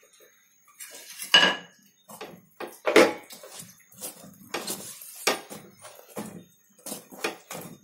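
Metal tongs clinking and knocking against a gas stove's metal burner and grate while a phulka roti is handled over the open flame: a string of sharp, uneven clinks, the loudest about three seconds in.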